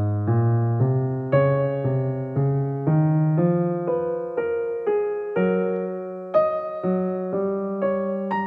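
Slow, gentle background piano music: notes struck about twice a second and left to fade, over a low line that climbs step by step through the first half.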